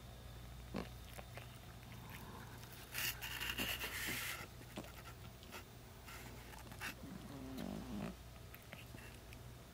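A short-haired Persian cat rolling and stretching on a rug: soft scrapes and rustles of fur and claws on the pile, with a breathy burst lasting about a second and a half about three seconds in and a short low sliding sound near the end, over a steady low hum.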